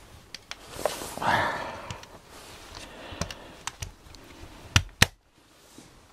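Rustling and light handling clicks as a mains plug is pushed into a power-strip socket, ending in two sharp clicks close together about five seconds in.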